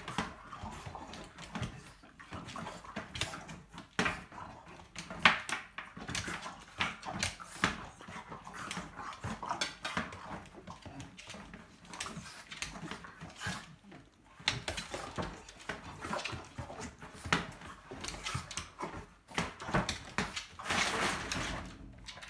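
A Boston terrier making vocal noises as it attacks a large inflatable exercise ball, with many irregular knocks and scuffles as the ball and the dog's feet hit the cabinets and wooden floor; the sharpest knock comes about five seconds in.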